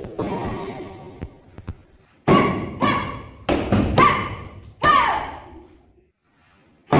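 Kicks smacking a handheld taekwondo kick paddle, about seven sharp strikes in irregular quick succession, each echoing briefly, some with a short shout. The strikes stop about a second before the end.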